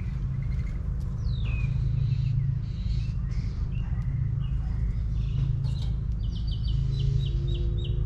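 Wild backyard birds calling: a couple of down-slurred whistles early, then a quick series of about eight short repeated notes near the end, over a steady low rumble.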